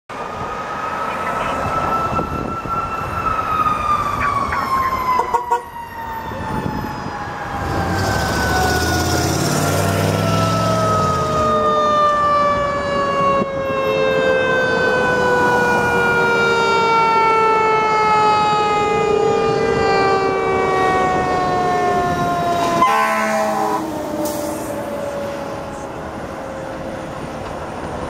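Siren of a 2005 Seagrave tractor-drawn aerial ladder truck on a call, wailing and then falling slowly in pitch as the rig approaches and goes by. Its air horns blast as it passes.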